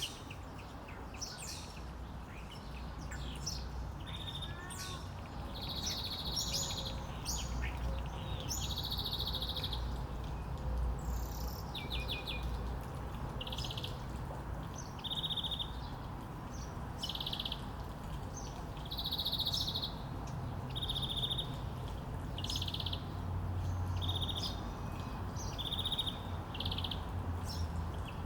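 Small songbirds chirping, with many short, high trilled notes repeated at irregular intervals and sharp single chirps between them, over a steady low rumble.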